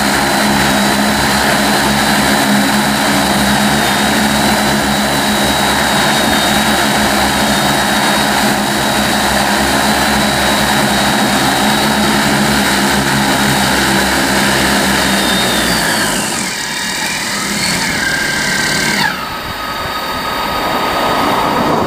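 Large multirotor crop-spraying drone with 30-inch (75 cm) propellers hovering close by with a steady droning hum. About 16 seconds in, the rotors spin down with falling pitch as it lands, and near 19 seconds the rotor sound drops away, leaving a thin steady tone.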